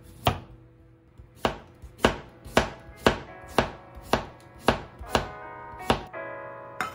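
Chef's knife slicing a cucumber thinly on a bamboo cutting board: about eleven chops, roughly two a second, each blade striking the board.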